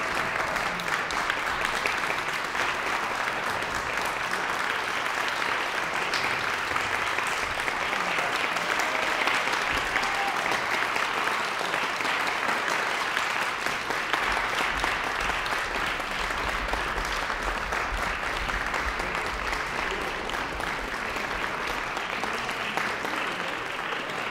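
Audience applauding steadily, a dense clatter of many hands clapping that eases off slightly near the end.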